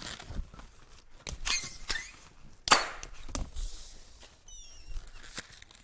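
Latex 260 modelling balloons squeaking and rubbing against each other as a balloon hand is twisted into the pinch twists of a balloon arm, with one loud sharp rub nearly three seconds in and a few short high squeaks a little later.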